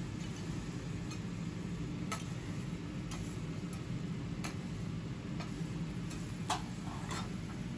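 Scattered sharp ticks and pops from an okonomiyaki on a hot steel teppan griddle and a metal spatula sliding under a slice, over a steady low hum. The loudest tick comes about six and a half seconds in.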